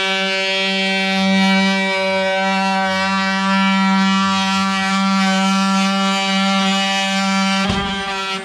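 Milwaukee M18 cordless drill running at speed with a steady whine as it drives a hole saw down through the wooden subfloor. Near the end there is a brief rough clatter in the cut.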